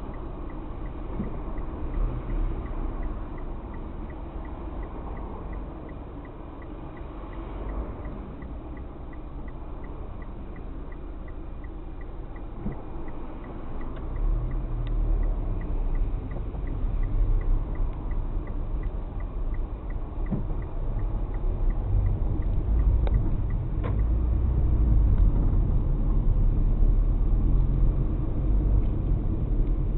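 Car driving, heard from inside: a low road and engine rumble, quieter at first and louder from about halfway through as the car gets moving. A light regular ticking about one and a half times a second runs along with it and stops near the end.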